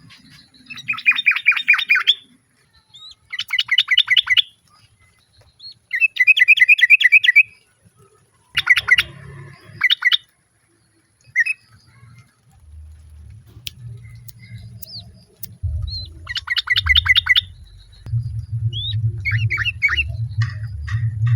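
Yellow-vented bulbuls calling: five bursts of rapid chattering notes, each about a second and a half long, then short scattered whistles near the end. A low rumble runs under the second half.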